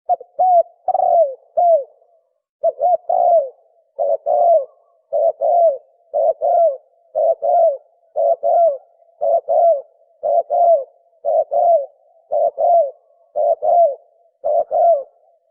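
Spotted dove cooing fast: a quick two-note coo, each note falling in pitch, repeated about once a second in the rapid 'thổ còi' style. It stops just before the end.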